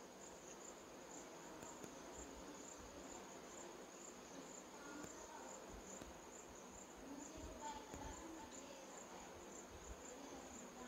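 A cricket trilling faintly in one steady, high-pitched note, with faint rustling of a polythene grafting strip being wrapped tight around a mango graft.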